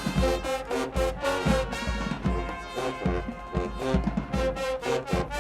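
HBCU marching band playing: brass (trombones and trumpets) over a driving drumline beat, with steady percussion hits.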